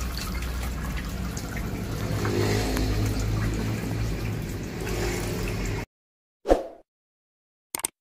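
Water trickling and splashing down through the tiers of a hydroponic tower of stacked plastic pots, over a low steady hum. It cuts off about six seconds in, followed by a short whoosh and a click.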